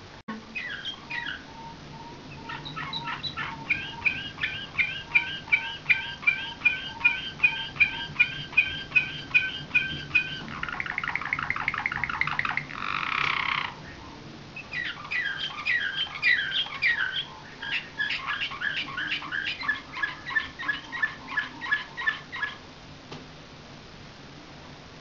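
White slavujar canary (a song canary trained in nightingale-like song) singing. It gives a run of repeated clear notes at about two a second, then a fast trill and a harsh rattling burst. After a short pause it sings more repeated-note phrases, stopping a couple of seconds before the end.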